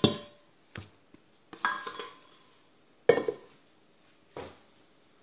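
A stand-mixer bowl clanking and ringing against the countertop as dough is turned out of it: about five separate knocks, the loudest about three seconds in.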